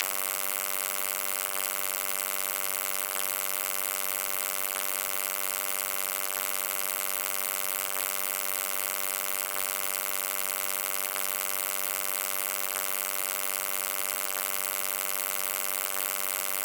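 Electrical buzzing: a steady, unchanging buzz rich in overtones, with a hiss over it.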